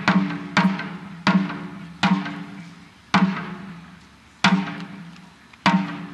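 Taiko drums struck with bachi sticks in single heavy strokes, about seven hits spaced ever wider apart, from about half a second to over a second. Each stroke rings out and fades before the next.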